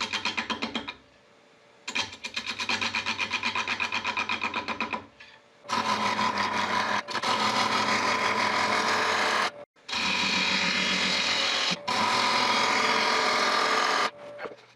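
Wood lathe turning a faceted glued-up oak birdhouse body, a gouge making an interrupted cut that gives a fast, even clatter as it strikes each facet, in two spells. From about six seconds in the cut turns to a steady hiss of shaving wood, with two brief breaks.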